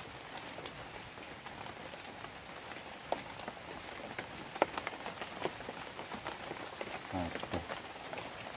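Steady rain falling on a shallow stream and the vegetation along it: an even patter with scattered sharp drop ticks. A brief low sound with a falling pitch comes about seven seconds in.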